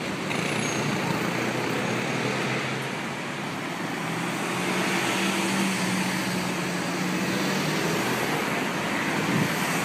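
Lamborghini Aventador's V12 engine running at low speed as the car rolls past and drives off, a steady low note that rises a little about halfway through, over street traffic noise.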